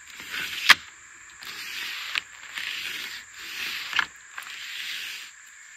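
Re-strung Remis pleated blind being slid along its frame: a series of scraping, rustling swells as the pleats run through the tracks, broken by three sharp clicks.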